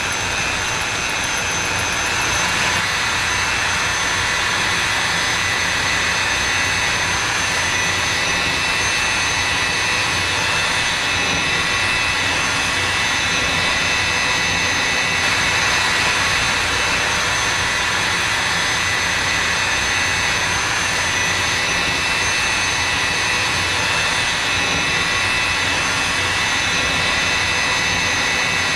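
Electric drill on a magnetic-base drill rig running steadily under load, its bit boring into the steel door of a safe, with a constant high-pitched whine over the grinding noise of the cut.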